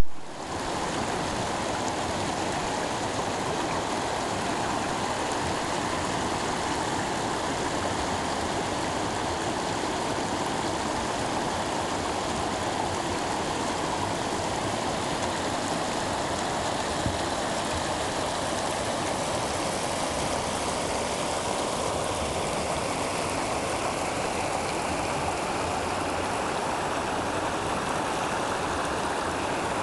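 Shallow river rapids rushing steadily over a rock ledge.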